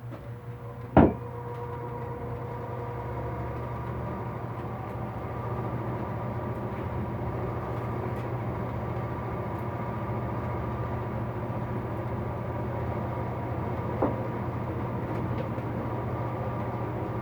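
Electric fan running with a steady hum, coming up after a sharp click about a second in; a lighter knock comes near the end.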